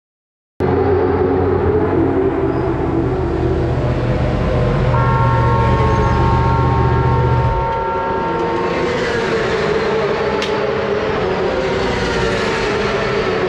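Yamaha YZF-R1 race bike's inline-four engine running at idle, a loud steady hum starting suddenly about half a second in. A higher steady tone sits over it from about five to nine seconds in, and the low part of the hum drops away about eight seconds in.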